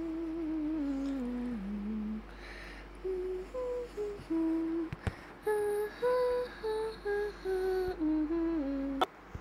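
A simple tune hummed one note at a time, with a short break about two seconds in. A sharp click comes near the end.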